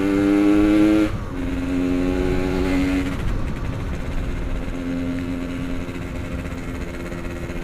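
Yamaha RX-King's lightly ported two-stroke single-cylinder engine under way: its pitch climbs slightly, drops off about a second in as the throttle is eased, then picks up again, settling lower near the end. A steady low wind rumble runs underneath.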